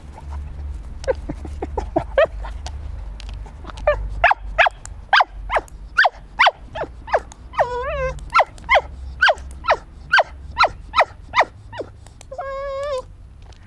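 Cockermops dog (a cocker spaniel–pug cross) sniffing hard in quick sharp bursts, about two a second, while searching for a scent. It gives two short whines, about eight seconds in and near the end.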